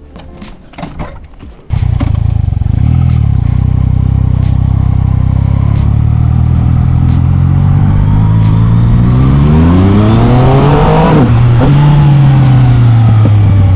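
Yamaha MT-09 motorcycle engine starts loud and suddenly, running steadily, then revs up with a rising pitch. About three-quarters of the way through the pitch breaks off and the engine carries on lower, easing down.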